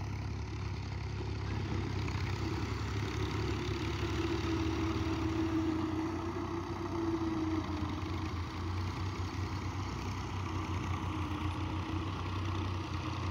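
Diesel farm tractors running steadily as they drag rear levelling blades through loose soil, a low engine drone throughout. A fainter higher whine comes in a few seconds in and fades out past the middle.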